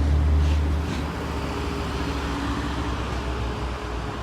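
Low engine rumble from a nearby motor vehicle or machine, loudest in the first second and then easing off, over general street traffic noise.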